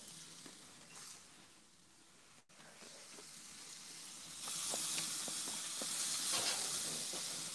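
Florentine (T-bone) beef steak sizzling on a gas grill's hot grates. It is faint at first, then from about four and a half seconds in it turns to a louder, steady hiss with scattered crackles as the steak is shifted on the grate over fat flaring below.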